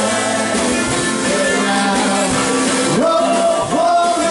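Live band music: a man singing over acoustic guitar and drums, his held notes swooping upward about three seconds in.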